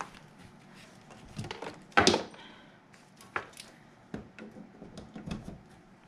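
Scattered clicks and knocks of a power cord and plug being handled and plugged in on a kitchen counter, with one louder clatter about two seconds in.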